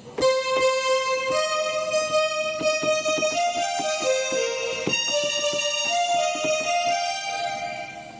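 A Korg M1 software synthesizer sounding a Ronish keyboard patch, played from a controller keyboard. It plays a short melody of held, bright notes with short clicks under them, and fades out shortly before the end.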